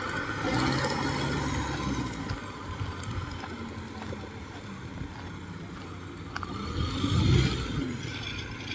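Engine of a tracked rice-hauling crawler cart running steadily, with a louder swell about seven seconds in.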